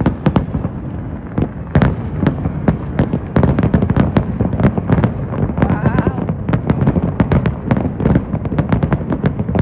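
Aerial fireworks bursting in quick succession, a steady run of booms and sharp cracks that thickens into a dense crackling barrage about three and a half seconds in.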